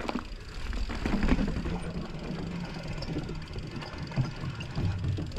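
Mountain bike riding down a dirt trail: tyre noise and a steady low rumble, with scattered clicks and rattles from the bike.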